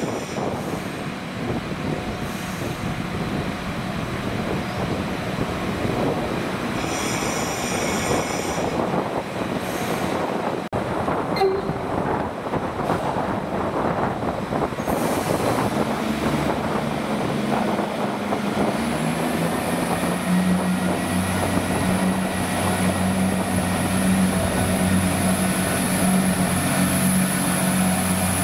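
Irish Rail 22000 Class ICR diesel multiple units approaching along the platform: a steady rumble of wheels on the rails with a brief high-pitched squeal about seven seconds in. From about halfway, the underfloor diesel engines' steady drone and a thin high whine grow louder as a unit draws alongside.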